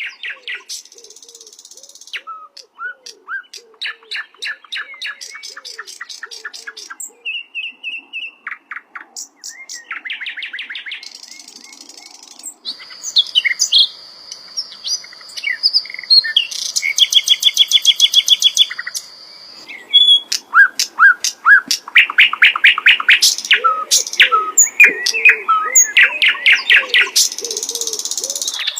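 Sikatan londo (hill blue flycatcher) singing a long, varied song: rapid trills, whistled notes and chattering runs one after another, louder from about halfway through.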